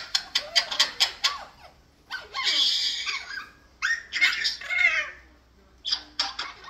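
Male Eclectus parrot vocalizing: a run of quick sharp clicks, then a harsh rasping call about two seconds in, then a wavering pitched whine around four seconds, with a few more clicks near the end.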